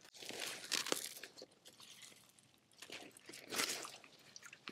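Irregular crunching and rustling handling noises with scattered sharp clicks, coming and going in short bursts.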